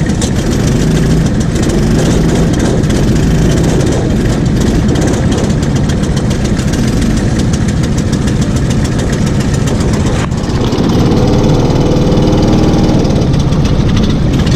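Rental go-kart engines running with a loud, steady drone, dipping briefly about ten seconds in before picking up again.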